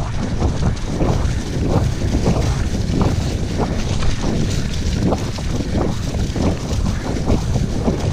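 Cross-country mountain bike ridden fast over leaf-covered dirt singletrack: a constant rumble of wind buffeting the action-camera microphone and tyres rolling, with frequent short knocks and rattles as the bike takes bumps.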